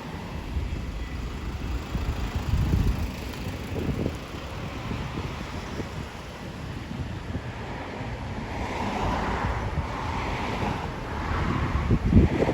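Wind buffeting the microphone: an uneven rumbling noise with stronger gusts about two to four seconds in and again just before the end.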